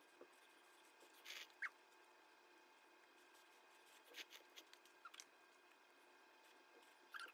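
Near silence broken by a few faint, short mouth sounds of someone eating instant cup ramen with chopsticks: slurping and chewing noodles, spaced a second or more apart.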